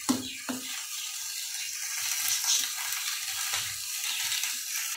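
Carrot halwa mixture cooking in milk in a steel kadhai, with a steady sizzle as the milk reduces. A few short metal scrapes and clicks from a spatula stirring the pan come near the start and again past the middle.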